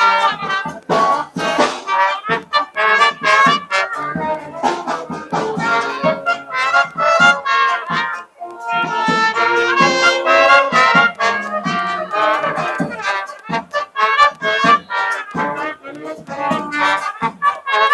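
Music played on reedy wind or brass instruments over a steady drum beat, breaking off briefly about halfway through.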